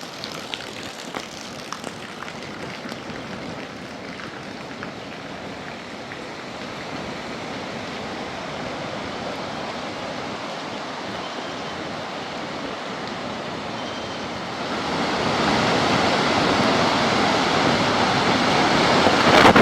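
Steady rushing storm noise of rain and wind, with a few scattered sharp ticks in the first seconds. It grows slowly and turns noticeably louder about fifteen seconds in.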